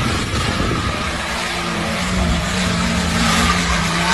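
Off-road SUV engines running hard as the vehicles drive fast across snow, over a constant rushing noise. A steady engine note comes in about two seconds in.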